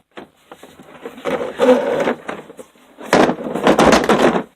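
Tools scraping and rattling in a tool cart drawer as they are moved around, in two stretches.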